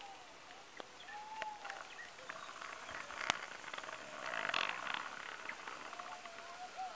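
Faint drawn-out animal calls, twice, each about a second long on one mid pitch that bends down at the end, over a soft steady outdoor hiss. A sharp click comes about three seconds in and a brief rustle a little after.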